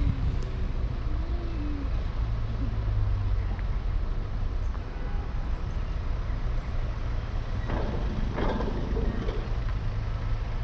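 Steady low rumble of a car's engine and tyres heard from inside the cabin as it drives slowly. There is a brief louder noise about eight seconds in.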